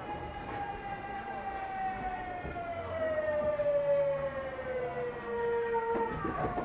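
Tokyu 9000 series electric train heard from inside a motor car: the VVVF inverter and traction motors whine in a tone with several overtones that falls steadily in pitch as the train slows under braking, then levels off near the end, over the rumble of the running gear.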